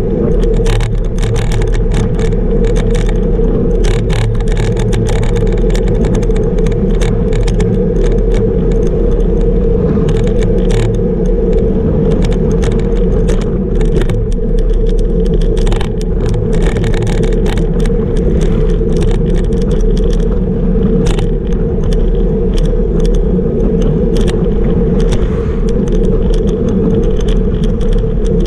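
Road bike ridden at about 38 km/h: steady wind rush over the bike-mounted camera's microphone with tyre and road rumble, and frequent small irregular rattles and clicks from the bike and mount over the asphalt.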